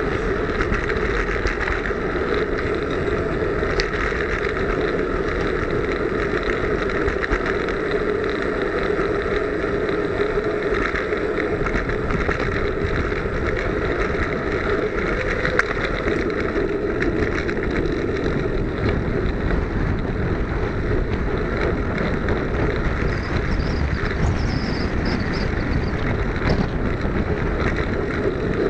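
Steady rush of wind and road noise from a Brompton folding bicycle ridden at race speed, heard from a small camera mounted low on the bike.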